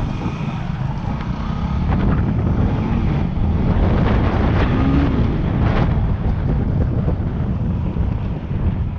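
Heavy wind buffeting on a helmet camera's microphone over the running single-cylinder four-stroke engine of a Yamaha WR250R dirt bike riding a gravel track, with a few sharp knocks from the bike going over bumps.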